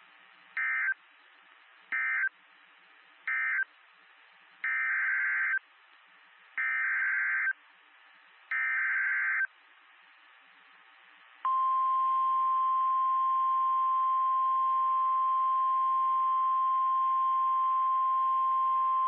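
NOAA Weather Radio Emergency Alert System tones: three short end-of-message data bursts, then three longer warbling SAME header bursts, then the steady single-pitch weather radio warning alarm tone starting about eleven seconds in. Together they close one warning and open the next, a flash flood warning. Faint radio hiss lies between the bursts.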